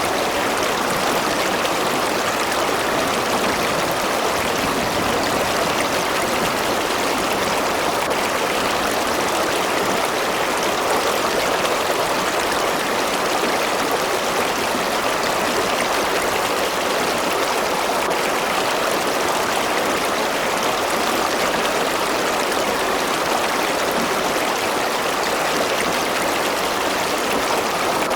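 A river or stream flowing steadily over rocks: a constant rushing and babbling of water with no breaks.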